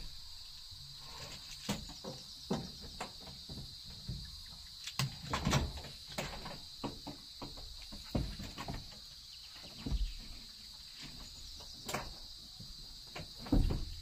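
Scattered knocks, taps and rustles as a mesh insect screen is handled and fitted across a van's rear doorway, with a louder thump about five and a half seconds in and another near the end. A steady high insect buzz runs underneath.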